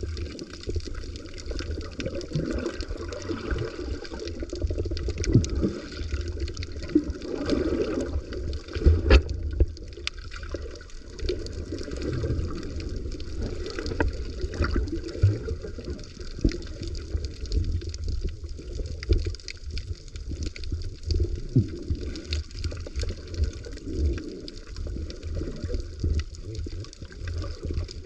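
Water sloshing and gurgling, a dense muffled churn with many scattered sharp clicks and pops.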